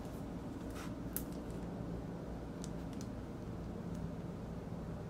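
Steady low hum of room noise, with a few faint crinkles and taps in the first three seconds from a shrink-wrapped vinyl LP sleeve being handled.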